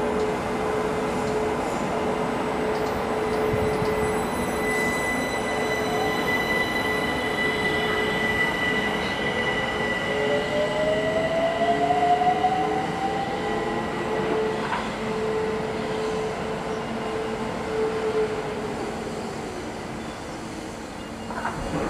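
London Overground Class 378 electric train moving through the station: a steady electric hum with steady high-pitched tones over it. About nine seconds in, a traction motor whine rises in pitch for some five seconds, as the unit gathers speed. The sound then fades as the train draws away.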